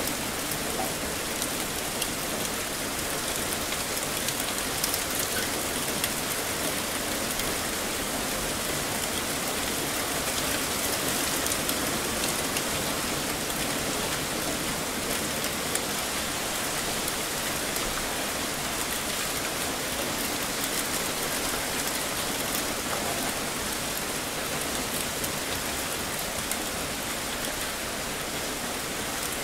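Heavy rain falling steadily, a dense even hiss of downpour with faint crisp drop ticks scattered through it.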